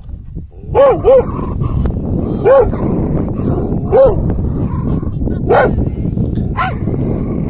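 A dog barking six times, short yaps that each rise and fall in pitch, over a steady low rumble.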